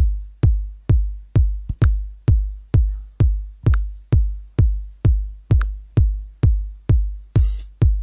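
Electronic dance music driven by a steady, deep kick drum, about two beats a second, with a cymbal swell coming in near the end.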